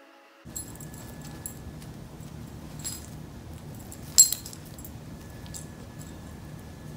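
Metal clinks and jingles, like dog collar tags, as two dogs wrestle, over a steady low rumble. One sharp clink about four seconds in is the loudest.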